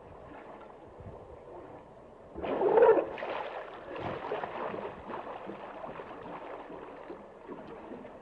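Water sloshing and gurgling, irregular and unsteady, with a louder surge about two and a half seconds in.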